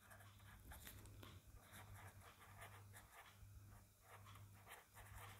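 Near silence with the faint scratching of a pen writing on paper, in small irregular strokes, over a faint steady low hum.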